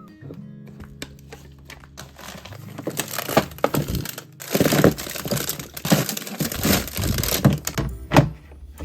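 Plastic packaging crinkling and rustling as it is handled, faint at first and louder from about three seconds in, with sharp crackles.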